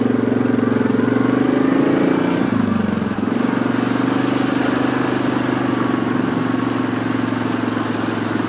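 Yamaha ATV engine running under way, a steady engine note whose pitch drops briefly about two and a half seconds in, then holds steady again.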